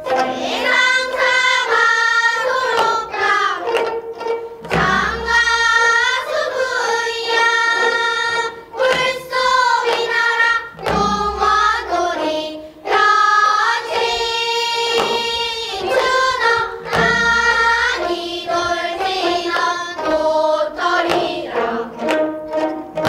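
A group of girls singing in unison in Korean gayageum byeongchang style while plucking their gayageum (twelve-string Korean zithers). A drum adds a low beat every few seconds.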